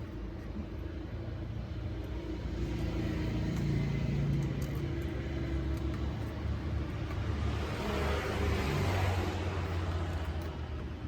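A steady low rumble, with a rushing hiss that swells and fades about eight to nine seconds in.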